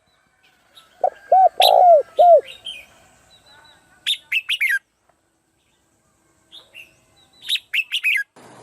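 Birds calling. First comes a group of four loud, low, arched notes. Then two quick runs of high, falling chirps follow, a few seconds apart.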